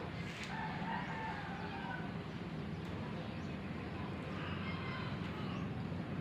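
A rooster crowing twice, once about half a second in and again later, each call drawn out and falling slightly at the end, over a steady low hum.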